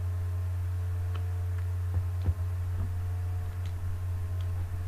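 Steady low hum with a few faint higher tones, and several light clicks and a soft knock about two seconds in as a cellophane-wrapped pillar candle is handled.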